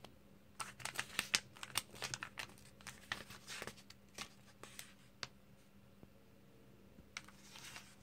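Glossy comic book pages being turned and handled, a run of crisp paper crackles and rustles for about five seconds, then a shorter rustle near the end.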